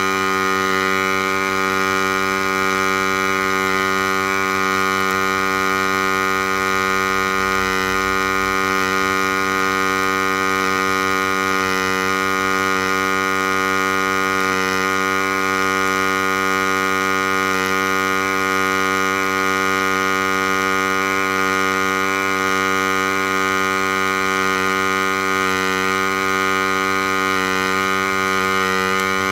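MIG welding arc on a DIY CNC welding rig, a steady humming buzz that runs without a break as the torch lays a continuous bead.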